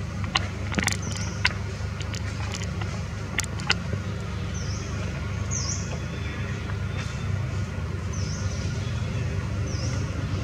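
Outdoor ambience: a steady low rumble like distant road traffic, a few sharp clicks in the first four seconds, and short high chirps repeating every second or two.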